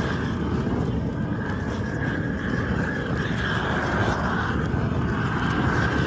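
Weed Dragon propane weed torch burning, a steady rush of gas flame held on the weeds.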